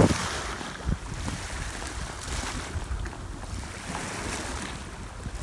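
Wind buffeting a phone's microphone in uneven low gusts, over the rush of small choppy waves at the shore, with a couple of stronger low thumps at the start.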